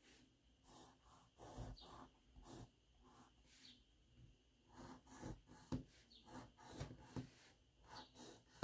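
Faint pencil on paper: a scatter of short, light strokes as small windows are drawn, with a slightly louder tap near the end.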